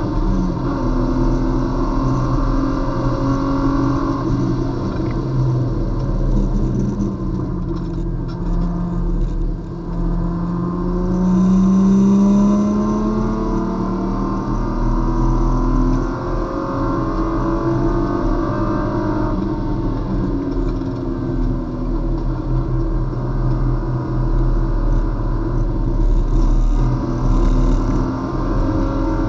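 Race car's engine heard from inside the cabin, running hard around a lap, its pitch climbing and dropping again and again with throttle, braking and gear changes; it is loudest about twelve seconds in.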